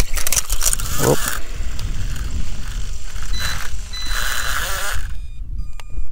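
Rustling and rubbing handling noise on a GoPro's microphone as it is pulled out of a pocket, with rumble in the microphone. It drops away about five seconds in, leaving a quieter stretch with a sharp click near the end.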